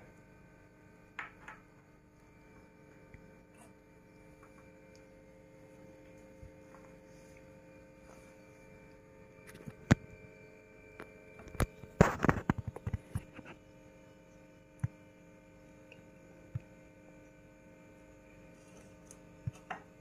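Faint steady electrical hum made of several held tones, under scattered small clicks and rustles of wires being handled and joined by hand; the loudest handling noises come in a cluster about twelve seconds in.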